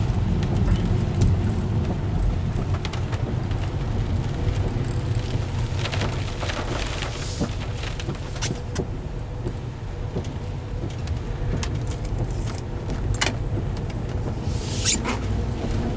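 Car interior road and wind noise while driving: a steady low rumble with scattered sharp clicks and ticks.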